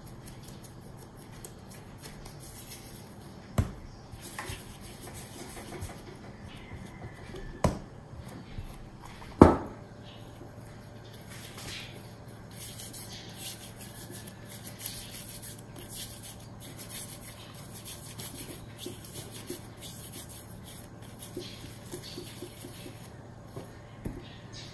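Hands rolling pieces of steamed-bun dough into balls, a soft rubbing and rustling. A few sharp knocks come in the first ten seconds, the loudest about nine seconds in, over a low steady hum.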